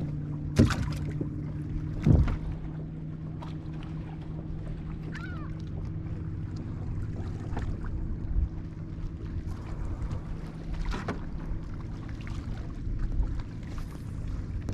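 A boat motor running with a steady low hum, over light wind and water noise. A few sharp knocks come through, at about half a second in, about two seconds in and again near eleven seconds.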